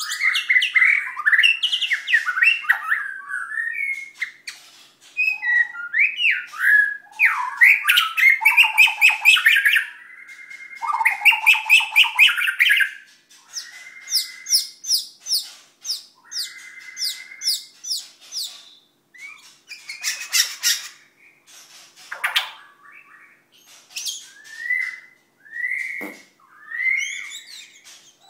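White-rumped shama singing a long, varied song: bursts of rapid repeated notes and trills, held whistled notes, and short upward-sliding whistles, broken by sharp harsh calls and brief pauses.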